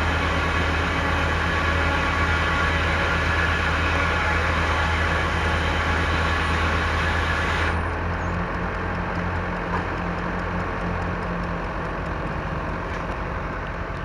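Engine-driven sawmill running: a steady engine drone with a loud, wide hiss of the saw over it, which cuts off suddenly about eight seconds in while the engine keeps running.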